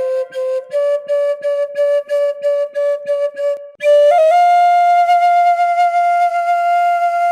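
Solo wind-instrument melody: quick repeated notes on one pitch, then about four seconds in it jumps to a long held higher note that falls back near the end.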